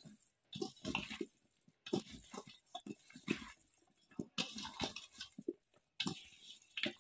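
Raw chicken feet being mixed by hand with a wet spice paste in a steel bowl: irregular wet squishing in uneven bouts, with occasional sharp clicks.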